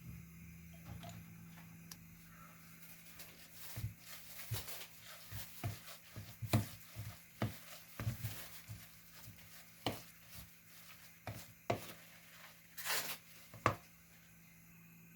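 Irregular short knocks and taps of kitchen handling, with a brief rustling burst near the end, over a steady low hum.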